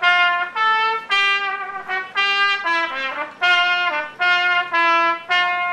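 A solo trumpet playing a slow melody of about ten separate held notes, each about half a second long, with short breaks between them.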